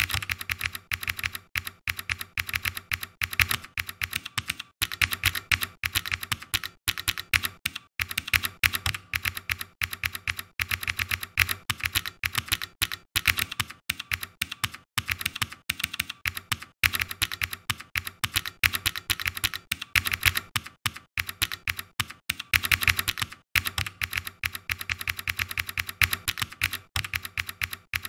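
Typing on a computer keyboard: a fast, continuous run of key clicks with a few short pauses.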